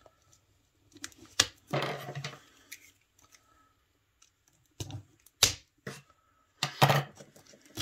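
Plastic shrink-wrap on a cardboard card box crackling and snapping as it is slit open along the edge: a few sharp clicks and short crinkles, the loudest near the end.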